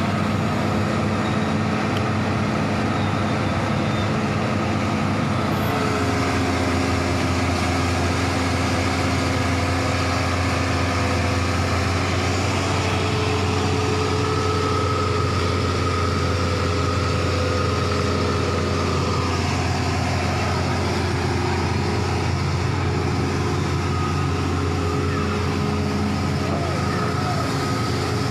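Hitachi hydraulic excavator's diesel engine running steadily, its note shifting slightly a few times.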